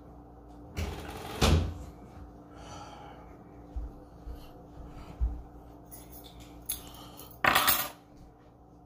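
A few clattering knocks of household objects being handled, the loudest about a second and a half in, with smaller knocks in the middle and a short rustle near the end.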